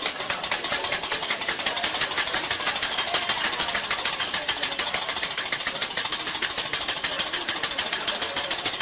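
Metal spatula and knife striking a steel teppanyaki griddle in a fast, even clatter of many strikes a second, as a chef chops food on the hot plate.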